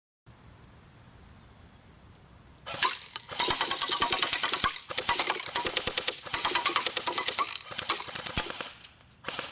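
Barra 400E electric BB rifle firing several long full-auto bursts starting about three seconds in, a fast mechanical rattle of the battery-driven gearbox, with steel BBs striking a tin can.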